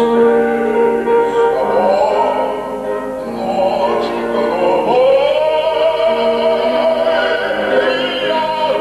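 Operatic soprano singing a classical aria with piano accompaniment, with long held notes sung with vibrato and gliding up between phrases.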